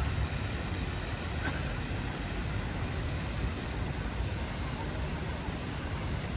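Steady outdoor city ambience: an even low rumble with a hiss over it.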